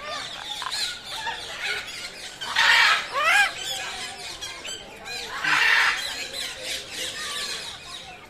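Parakeets calling: a run of chirps and rising whistles, broken by two loud, harsh screeches about two and a half and five and a half seconds in.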